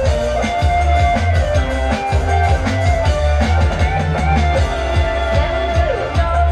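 Kecimol band playing: large bass drums beaten with mallets in a steady, driving beat under a loud melody line with bending notes.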